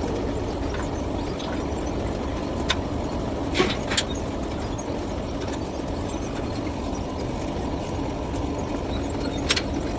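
Engine of a Dasmesh 7100 combine harvester running steadily, with a few sharp clicks around three to four seconds in and again near the end.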